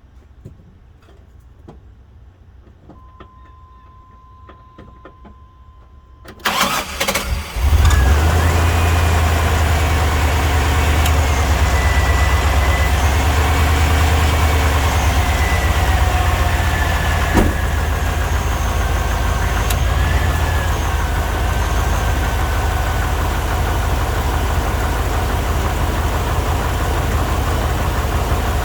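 A 1998 K1500 pickup's engine is cranked by the starter for about a second, catches and settles into a steady fast idle. Before that, a steady high tone sounds for about three seconds.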